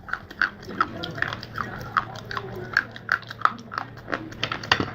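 Close-miked chewing of crunchy edible clay: sharp, regular crunches about three times a second.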